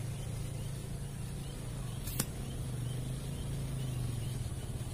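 A single sharp crack of a PCP air rifle firing a fishing dart, about two seconds in, over a steady low hum.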